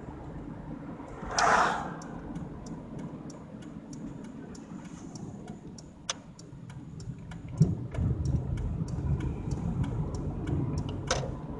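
Car turn-signal flasher clicking steadily, about three clicks a second, heard inside the car over tyre and road rumble. About a second and a half in an oncoming vehicle rushes past. About two-thirds of the way through there is a sharp knock as the car bumps over the railroad tracks, and the road rumble is louder after it.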